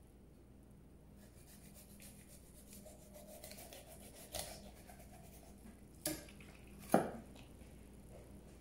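Kitchen handling sounds as a whole grouper is worked for filleting: soft rubbing and scraping with three knocks on the work surface, the loudest about seven seconds in.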